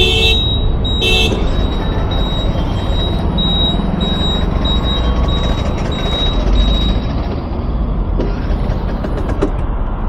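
Road traffic heard from a scooter at a crossing: a steady low rumble of engines and passing cars. A vehicle horn honks at the start and again briefly about a second in, then a short high beep repeats about twice a second for several seconds.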